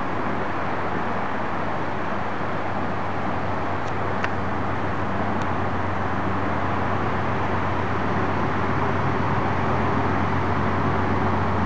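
Steady low rumble of distant road traffic and an approaching P32AC-DM diesel locomotive hauling a passenger train, slowly growing louder, with a few faint short chirps about four seconds in.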